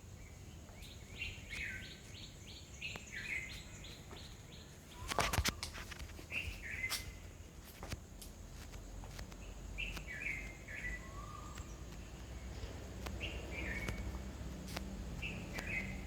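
Birds chirping, with a quick run of repeated notes near the start and short separate calls after that. A brief cluster of sharp clicks about five seconds in is the loudest sound.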